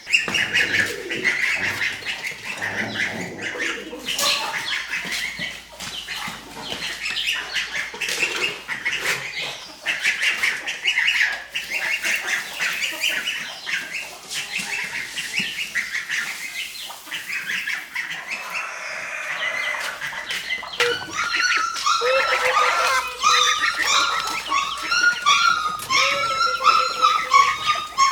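A flock of farm poultry calling: many short, high chirps overlapping throughout, joined about two-thirds of the way through by lower, repeated calls.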